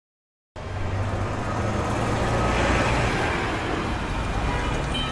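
City traffic noise: a steady hiss of passing vehicles with a low rumble, starting suddenly about half a second in after a moment of silence.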